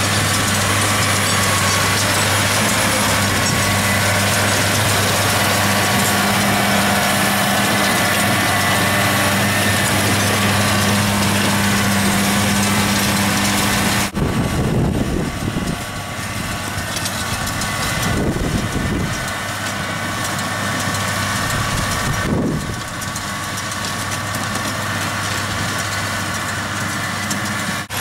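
Tractor diesel engine running steadily under load, pulling a McHale round baler that gathers and compresses grass into a bale. About halfway through, a cut brings the machinery quieter, with a few brief low rumbles.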